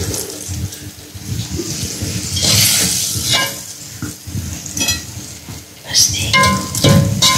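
A metal slotted spoon stirring and scraping through cooked rice, meat and carrots in a large aluminium pot, with several ringing clinks of the spoon against the pot, loudest about six to seven seconds in.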